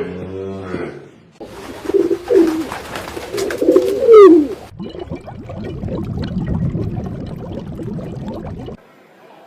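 Pigeon cooing in low warbling phrases, just after the end of a deep animal grunt. The cooing is followed by about four seconds of low rustling noise that stops abruptly.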